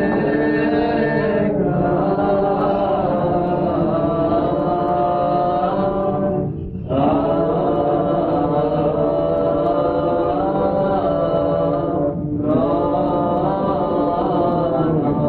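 Orthodox Byzantine-style chant: slow sung melodic phrases on sustained notes, with two brief breaks for breath about six and twelve seconds in.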